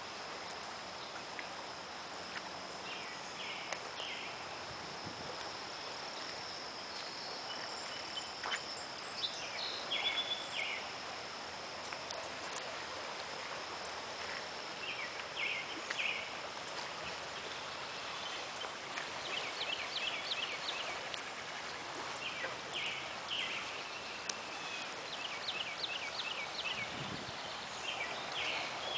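Steady rush of a storm-swollen creek in flood, with a thin high steady whine over it and clusters of short, high chirping calls now and then.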